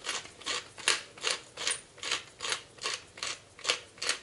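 Wooden pepper mill grinding black peppercorns, turned in a steady rhythm of short rasping grinds, about two and a half a second.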